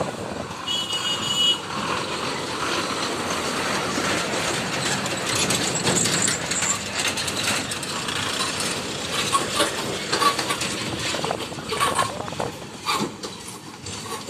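Loaded lorries passing close by on a rough dirt road: diesel engines running and the bodies and loads rattling, with a brief high tone about a second in.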